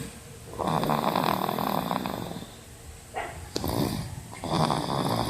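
A toddler of about two and a half snoring in his sleep: a long, rough snore, then another beginning near the end.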